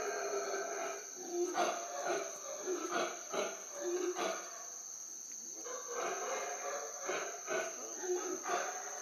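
Black howler monkeys roaring in a run of short, deep pulses about two a second, pausing briefly around the middle and then starting again. A steady high insect drone runs underneath.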